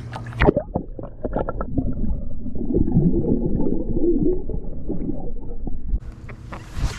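Water gurgling and sloshing, heard dull and muffled with the high end cut off. There are a few knocks in the first couple of seconds, and the sound clears again about six seconds in.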